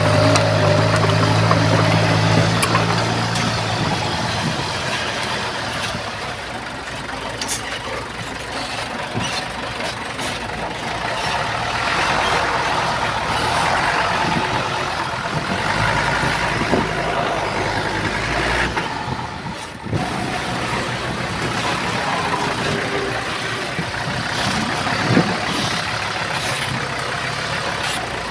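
Diesel engines of heavy earthmoving machinery, a bulldozer and dump trucks, running and working, with a steady low engine hum in the first few seconds. There is a brief drop in the sound about two-thirds of the way through and a sharp click near the end.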